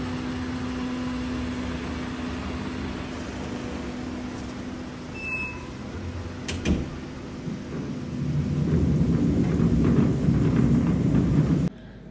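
A car's engine running with road noise, a steady rumble with a hum in it, and a sharp click about six and a half seconds in. It grows louder about eight seconds in, then cuts off abruptly near the end.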